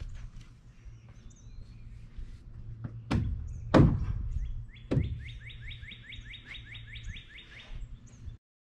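Three heavy knocks on timber, each under a second apart, as the frame's horizontal pieces are fitted, over a steady low hum. A bird's rapid chirping, about four notes a second, follows, then the sound cuts off suddenly.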